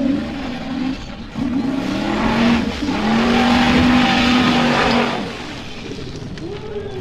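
Formula off-road buggy's engine revving hard as it climbs a steep dirt slope. The revs rise, hold high and steady at their loudest from about three to five seconds in, then drop away.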